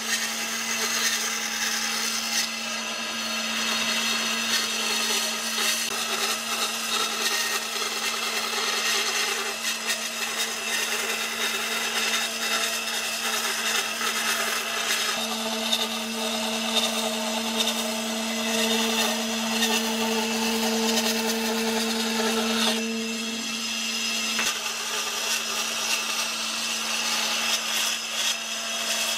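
Band saw running and cutting along curves through a thick wooden board: a steady motor hum under the continuous rasp of the blade in the wood, its tone shifting briefly about three-quarters of the way through.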